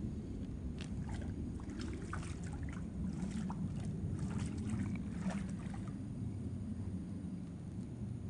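Irregular splashing and sloshing in shallow swamp water, clustered in the first six seconds, over a steady low wind rumble.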